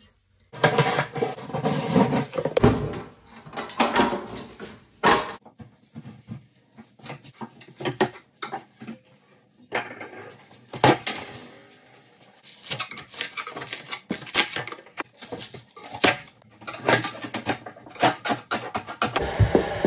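Irregular clatter, knocks and scrapes of hand tools and hard materials being handled during renovation work.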